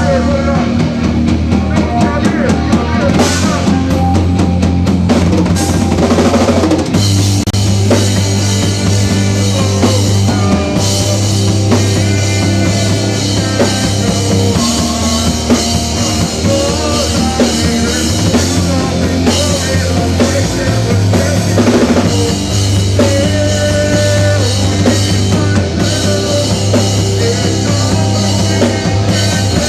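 Rock band playing loudly and steadily, with a full drum kit (bass drum, snare and rimshots) over sustained bass.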